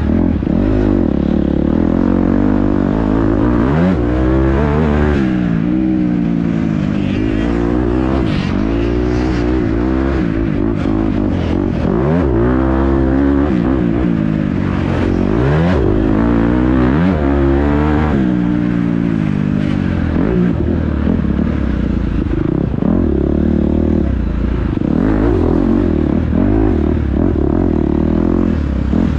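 Dirt bike engine being ridden hard off-road, revving up and falling back again and again as the throttle is worked, with some clattering.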